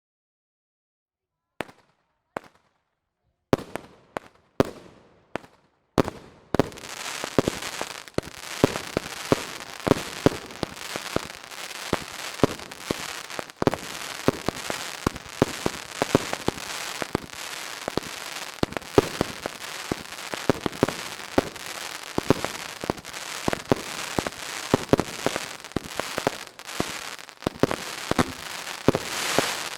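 Fireworks crackling. A few separate sharp pops come first, then from about six seconds in a dense, continuous run of rapid crackling pops that keeps on.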